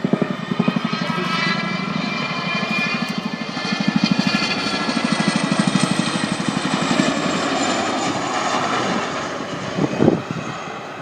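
Display helicopter flying close, its rotor blades beating in a fast, even chop under a high turbine whine that slowly falls in pitch. A short thump sounds near the end.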